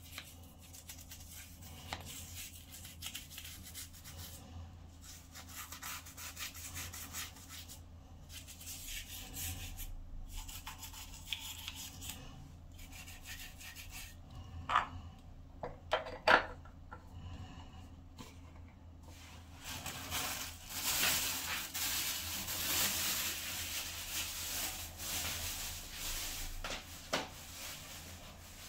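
Rubbing and rustling noises on and off, with a few sharp clicks around the middle and a longer, louder stretch of rubbing a little after that.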